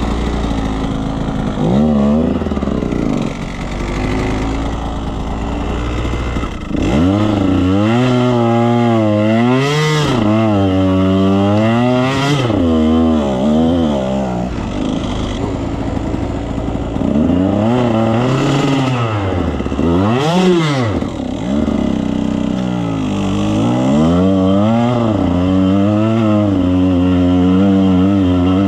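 Two-stroke enduro dirt bike engine under way on a trail, revving up and down again and again as the throttle is opened and shut, with a few short sharp knocks near the highest revs.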